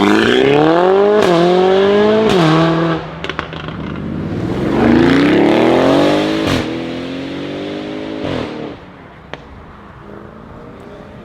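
Mercedes-AMG A45 S's 2.0-litre turbocharged four-cylinder through a Milltek straight-pipe exhaust with the particulate filter deleted, accelerating hard. Its revs climb with two quick upshifts, each marked by a sharp crack. A second rising pull cuts off sharply about six and a half seconds in, and the exhaust then fades, with a few faint pops near the end.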